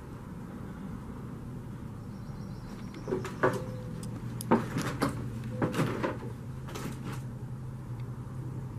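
Footsteps on a rubble-strewn floor. From about three seconds in come a handful of sharp knocks and crunches, over a low steady hum.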